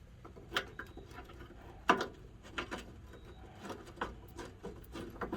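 Bolts and hand tools being picked up and handled: a few scattered metal clicks and clinks, the loudest about two seconds in.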